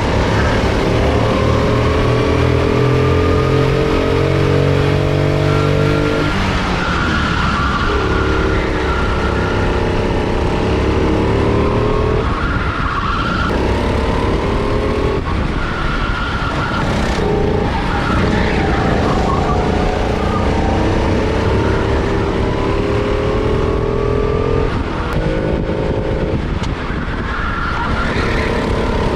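Four-stroke rental kart engine heard from on board under racing load. Its pitch climbs steadily along each straight, then drops sharply as the throttle is lifted for a corner, about five times over the lap.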